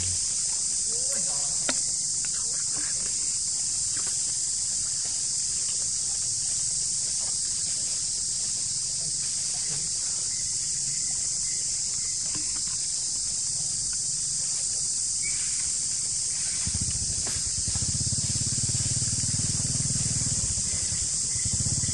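Steady high-pitched drone of an insect chorus in the surrounding forest. A low rumble joins in about three-quarters of the way through.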